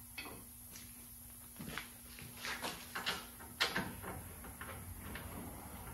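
Scattered light clicks and knocks of a large brake caliper bracket bolt being handled and threaded in by hand on a Ford F-150 rear brake. The sharpest knock comes about three and a half seconds in.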